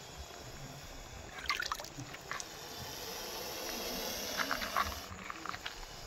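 Scattered light crunches and scrapes on loose gravel, in short clusters about a second and a half in, at two and a half seconds and again around four and a half seconds, over a faint steady hiss.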